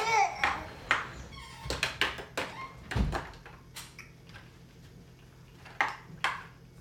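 Irregular plastic knocks and clatters of a baby banging a toy and slapping the tray of a plastic activity walker, with a low thump about three seconds in. A brief high squeal comes right at the start.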